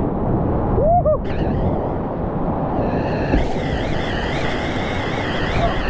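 Whitewater rapids rushing loudly around a kayak running a steep granite drop, with water splashing over the camera. There is a short warbling sound about a second in, and a higher hiss joins from about halfway through.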